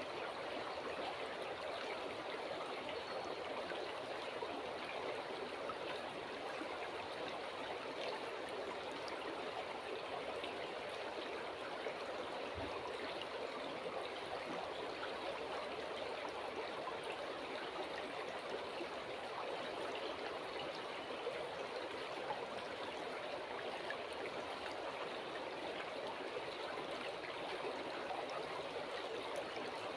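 Calm river flowing: a steady, even rush of running water, with one faint low thump about halfway through.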